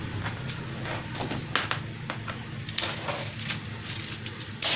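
Small clicks and taps of an air-hose chuck being worked onto the valve of a new inner tube in a motorcycle wheel, then near the end a loud hiss of compressed air starts as the tube begins to inflate.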